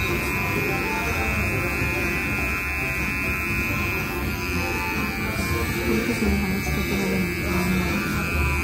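Electric hair trimmer buzzing steadily as it trims around the ear, over background music.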